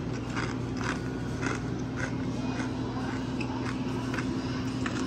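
A person chewing crunchy food close by, soft crunches about twice a second, over a steady low hum.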